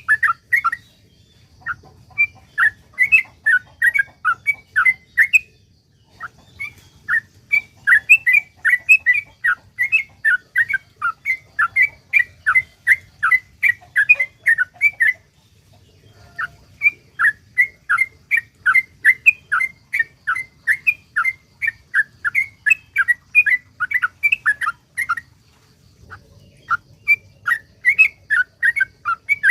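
Yellow-vented bulbul (trucukan) singing its long run ('ropel panjang'): strings of short, loud chirping notes at about three a second. It sings four runs separated by short pauses, the longest lasting about eight seconds.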